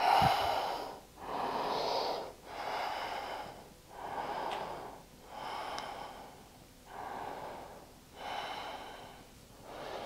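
A woman's loud, deep breathing, about eight even breaths in and out of roughly a second each, as she holds a demanding standing balance yoga pose.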